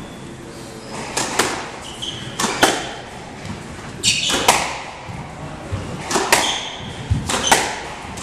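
Squash ball being struck by rackets and smacking off the court walls during a rally, sharp hits every second or so, some in quick pairs. Rubber-soled court shoes squeak briefly on the wooden floor between hits.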